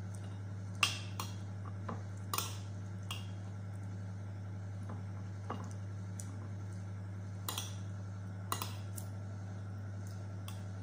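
Metal spoon clinking and scraping on a ceramic plate while eating, about nine short sharp clicks at irregular intervals, the loudest about a second in, over a steady low hum.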